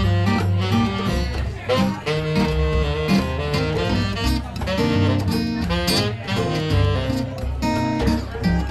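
Small live jazz combo playing a jazz standard: plucked upright bass line and hand drum, with saxophone.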